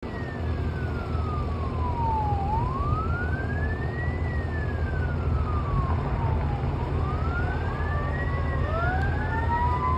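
Fire engine siren in a slow wail, its pitch sweeping down and up about every two seconds, with a second wailing tone joining near the end. In the last second and a half a mechanical Q siren winds up, its tone climbing steadily, over a constant low rumble.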